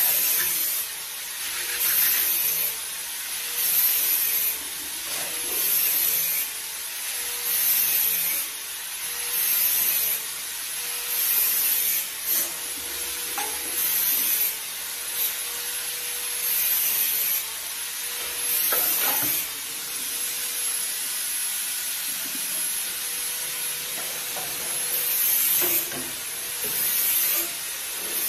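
Dishes being scrubbed by hand at a kitchen sink: a brush or sponge rasping over crockery in strokes about every two seconds, with a steady hiss underneath and an occasional knock of a dish.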